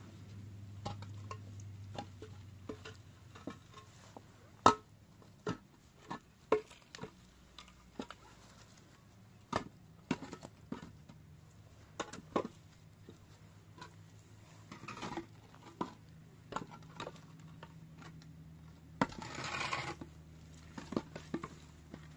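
Irregular light clicks and knocks of small hard objects being handled, the sharpest about five seconds in. Near the end comes a scraping rustle about a second long. A faint low hum runs underneath.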